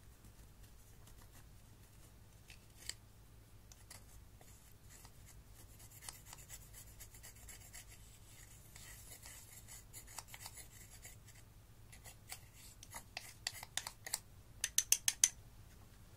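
Thin metal spatula scraping pressed black eyeshadow out of its plastic pan: dry, gritty scratching with scattered small clicks, denser in the middle, then a quick run of sharp taps near the end, the loudest sounds here.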